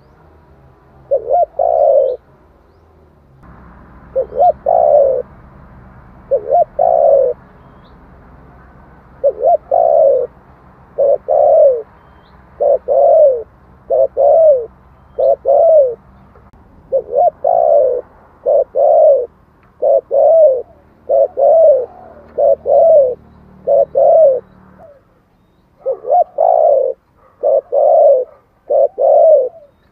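Spotted dove (male) cooing in a fast, insistent series of short coos, roughly one a second and often in quick pairs, the rapid 'thúc' cooing used as a decoy call to provoke wild doves. A faint low hum sits underneath.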